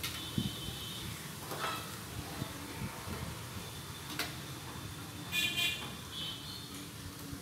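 Dried cow dung cakes being stacked by hand into a clay brazier, with a few light knocks and scrapes as they go in. A brief high-pitched toot sounds about five and a half seconds in.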